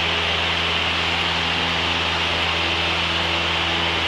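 Cessna 172 Skyhawk's engine and propeller droning steadily in the cockpit during the climb-out just after takeoff, with an even hiss of airflow over it.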